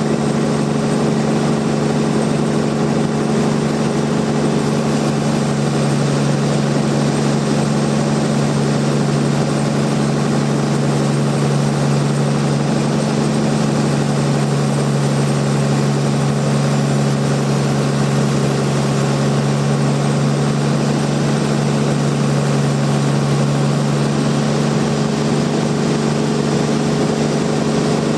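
Sawmill machinery running steadily with a constant hum and no change in pitch.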